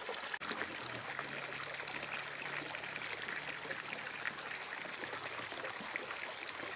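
Shallow stream running steadily over rocks, a continuous trickling and rushing of water.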